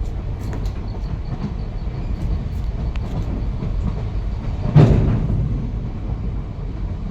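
Train running along the track, a steady low rumble with one sharp clank nearly five seconds in.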